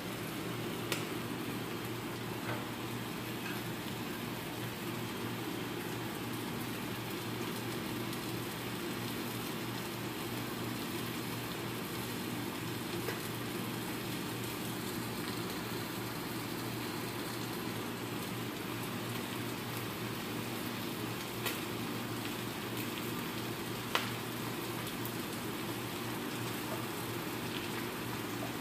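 Sliced mushrooms sizzling steadily in melted butter in a nonstick frying pan, with a couple of light clicks near the end.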